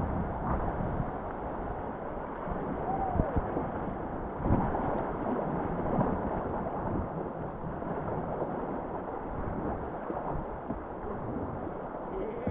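Whitewater rapids rushing steadily, with wind buffeting the microphone.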